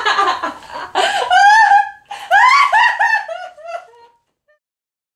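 A young woman laughing from being tickled: several runs of quick, high-pitched laughs that stop about four seconds in.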